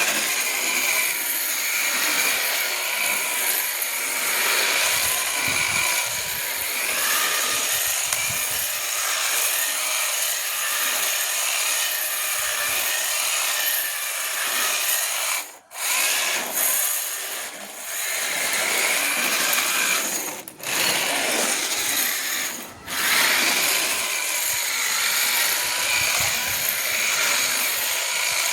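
Radio-controlled drift car running: a steady, high-pitched whir of small motor and gear noise. It cuts out briefly three times, near the middle and again about two-thirds of the way through.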